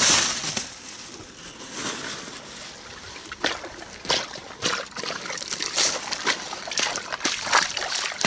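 Pond water splashing and sloshing as someone wades through it, with a louder splash right at the start and then a run of short splashes and drips.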